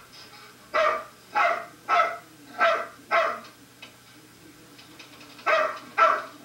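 A dog barking in runs: five barks about half a second apart, a pause of about two seconds, then three more near the end.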